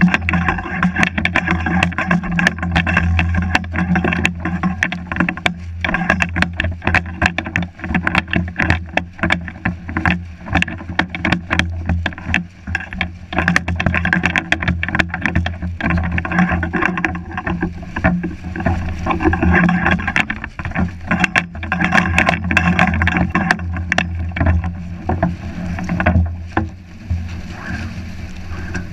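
The luffing sail and loose sheets of a beached Pati Català catamaran flapping and whipping in strong wind. Their rapid, irregular cracks and slaps sit over a steady low rumble of wind on the hull-mounted microphone, with breaking surf.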